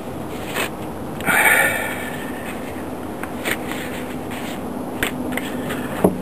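Thin disposable gloves rustling and crinkling as they are peeled off the hands and dropped, with a louder rustle about a second and a half in and a few light taps and crinkles after.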